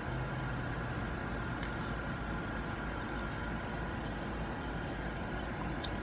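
Steady low hum inside a parked car's cabin, with faint thin clicks and clinks now and then, mostly in the second half.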